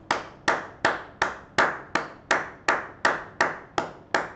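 One person clapping slowly and steadily, about three claps a second, a dozen in all, each a sharp smack with a short ring after it.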